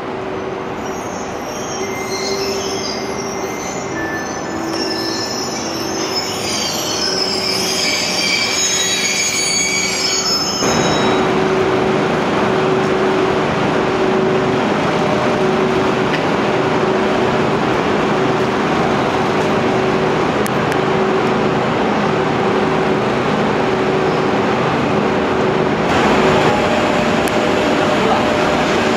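Train of 205 series commuter cars hauled by an EF81 electric locomotive rolling slowly past, with high-pitched wheel squeals for the first ten seconds or so. Then a louder, steady running noise with a constant hum as the locomotive draws near, growing brighter about three seconds before the end.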